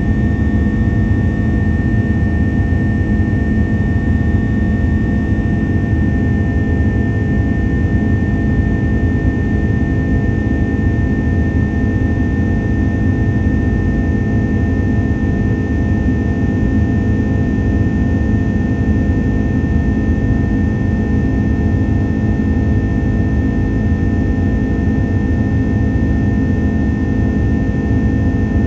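Airbus A330-300's jet engines in flight, heard inside the cabin beside the wing: a steady, even drone with a constant high whine over it.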